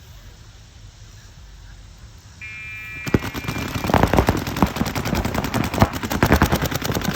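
A steady electronic buzzer tone sounds about two and a half seconds in, the start signal of a paintball point. Then several paintball markers open fire off the break, a dense rapid stream of sharp pops that runs on to the end.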